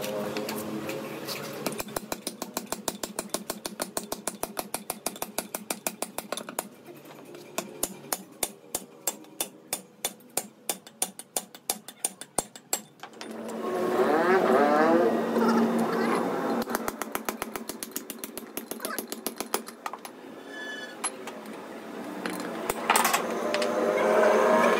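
Rapid, even metal-on-metal hammer taps, about four a second, driving a bronze bushing into the king pin bore of a truck front-axle steering knuckle. They stop for a few seconds past the middle, where men's voices are loudest, then start again, and voices return near the end.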